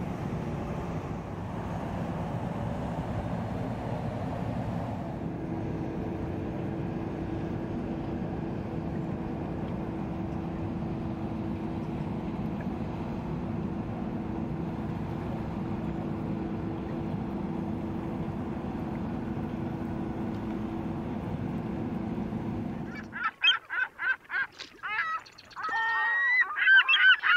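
Inland cargo barge's diesel engine running steadily as it passes, a low even noise with a steady hum. About 23 seconds in it gives way to geese honking, a string of loud calls.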